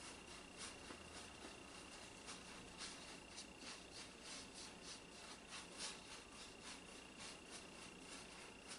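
Soft bristles of a mop brush dabbing and swirling over a canvas while blending acrylic paint: faint scratchy strokes, about two or three a second. A thin steady high tone runs underneath.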